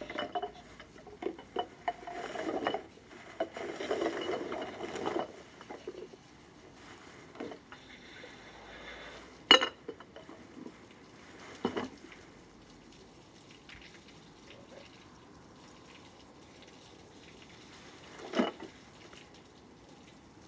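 Garden hose in use: water splashing and spattering in uneven spurts for the first five seconds, then three sharp clicks a few seconds apart as the hose's spray nozzle is worked.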